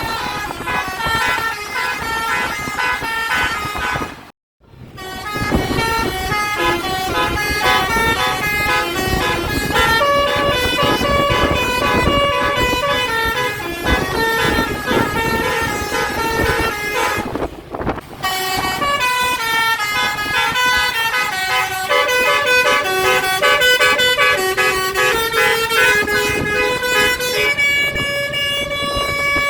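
Bus telolet horn, a set of horn trumpets sounded in turn, playing a quick stepped melody of short toots. It breaks off briefly about four seconds in and again just before halfway, and ends on several notes held together.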